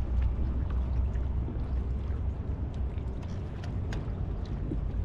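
Water lapping against a plastic kayak hull, under a steady low rumble of wind on the microphone, with a few light ticks scattered through.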